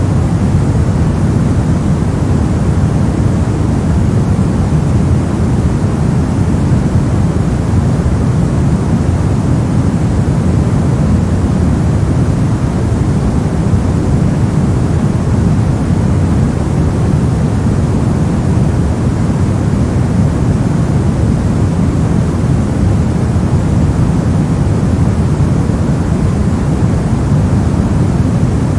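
Steady generated noise of the kind sold as white noise, unchanging throughout. It is weighted toward the low end, a deep, even rush rather than a bright hiss.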